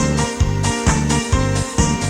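Upbeat background music with a steady bass beat, roughly two to three beats a second.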